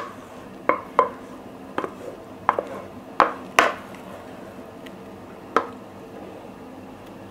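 A kitchen utensil knocking against cookware while mashed potato is scooped out and spread over the cod in the baking dish: about seven sharp, irregular knocks.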